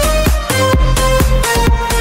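Background music with a steady, fast beat of about four beats a second over held notes.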